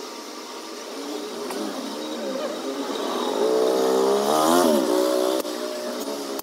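Cordless drill driving a screw into a plywood sofa frame. The motor's whine climbs in pitch, dips briefly about four and a half seconds in, and cuts off about a second later.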